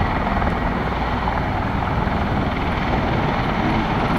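Boeing 787 Dreamliner's twin turbofan engines, heard from the ground as a steady, even jet noise while the airliner flies past and banks.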